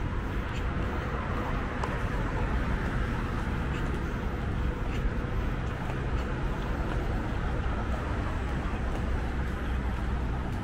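Busy city street ambience: a steady rumble of road traffic, with faint voices of passers-by.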